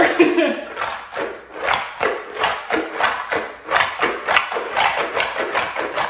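Jumbo DNA stress ball squeezed over and over by hand: a quick run of squishing sounds, about two to three a second.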